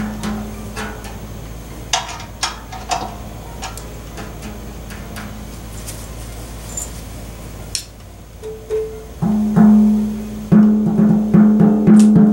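Studio 49 kettle drum with a freshly replaced head, tuned to the top of its range. First come light finger taps on the head near the rim. From about nine seconds in, a quick run of felt-mallet strokes rings a clear, resonant pitched note.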